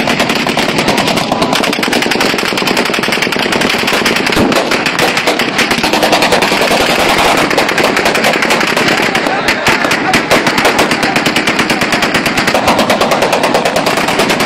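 Many guns firing into the air at once: rapid automatic bursts and single shots overlapping in an unbroken volley.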